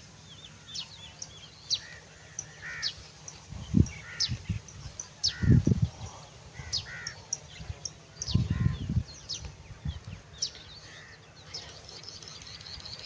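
Birds chirping and calling over open farmland: many short high chirps and repeated arched calls. A few low gusts of wind buffet the microphone partway through and are the loudest sounds.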